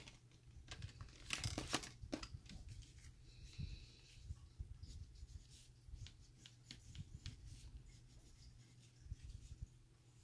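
Colour pencil scratching on paper in short, uneven strokes as a page is coloured in. There are a few louder handling noises in the first two seconds as the pencil is taken from its tin.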